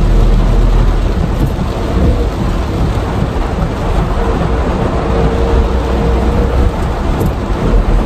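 Heavy rain pounding on the roof and body of a Suzuki Jimny JB64, heard loud from inside the cabin while driving, over a deep steady rumble of storm wind and road noise.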